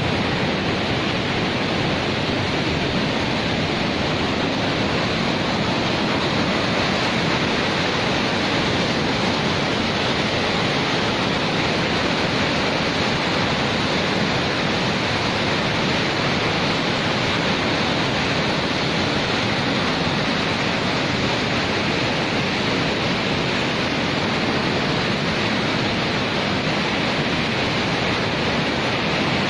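Fast-flowing floodwater rushing steadily, a dense, unbroken noise with no change in level.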